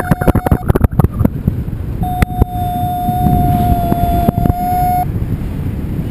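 Wind rushing over the microphone of a harness-mounted camera in paraglider flight, with repeated buffeting pops. A paragliding variometer holds a steady electronic tone that stops within the first second, returns about two seconds in, and cuts off about five seconds in.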